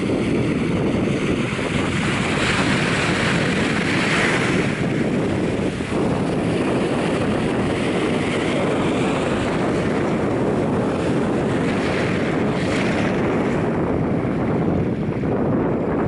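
Small waves breaking and washing up onto a sandy shore, with steady wind buffeting the microphone. The wash surges a few seconds in and again around twelve seconds.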